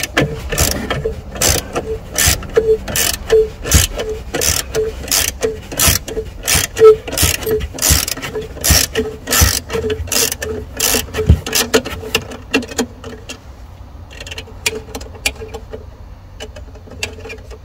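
Ratchet wrench clicking in regular strokes, about one and a half a second, as a nut on a 12V car battery is loosened. The clicking turns fainter and more scattered about twelve seconds in.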